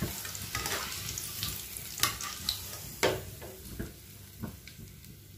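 Pappadam pieces sizzling as they deep-fry in hot coconut oil in a wok, stirred and scooped with a wire-mesh strainer ladle that clicks against the pan a few times. The sizzle grows fainter toward the end as the pieces are lifted out of the oil.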